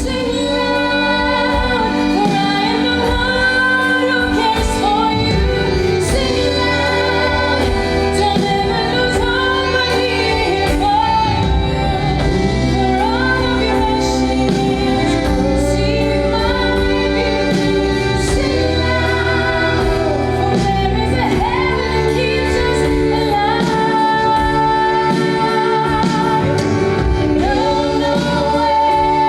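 A woman singing a song over a full band accompaniment, with backing voices.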